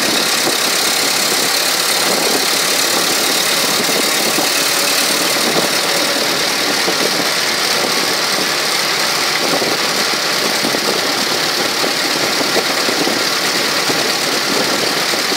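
A 1912 REO automobile driving at a steady pace on a paved road: its engine running together with road and wind noise, steady and unchanging.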